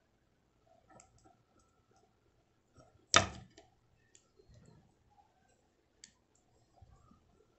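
Small transforming robot toy figure being handled and twisted in the hands: scattered light clicks of its jointed parts, with one sharp, much louder click or knock about three seconds in.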